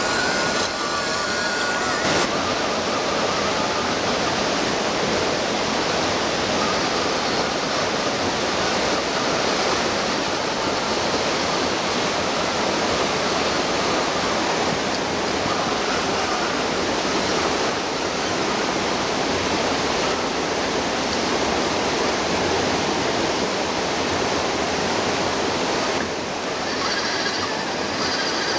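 Steady rushing of a shallow stream flowing over rock, an even wash of water noise.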